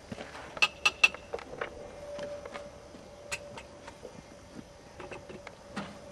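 A few sharp metallic clicks and clinks from small metal parts being handled: three loud ones close together between half a second and a second in, the last with a short ring, then a few fainter single clicks.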